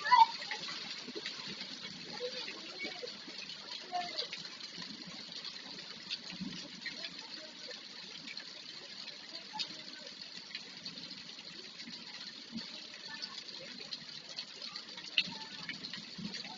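Steady rain falling and running off, an even wash of water noise with a few faint brief ticks and distant voices.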